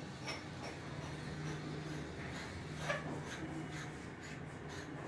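Faint rubbing and a few light clicks as a diverter handle is worked onto its spindle by hand, over a faint low hum.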